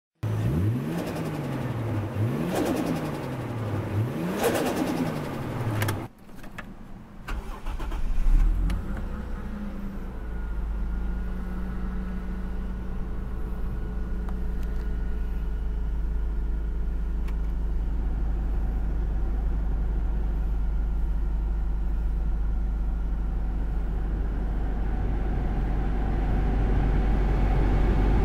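For the first six seconds a tone rises and falls over and over, followed by a few clicks. About eight seconds in, a Toyota Cresta Tourer V's 2.5-litre twin-turbo 1JZ-GTE inline-six starts and settles into a steady idle.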